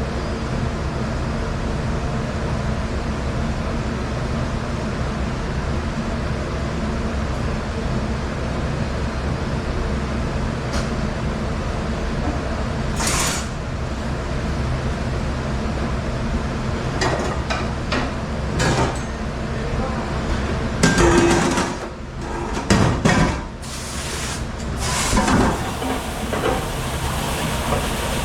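A steady mechanical hum runs throughout. Scattered clanks and knocks come over it, with a louder cluster about three-quarters of the way through.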